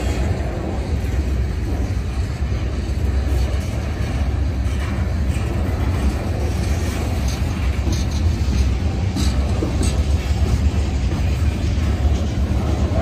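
Loaded freight train's covered hopper cars rolling past at close range: a steady low rumble of wheels on rail, with a few short metallic clanks partway through.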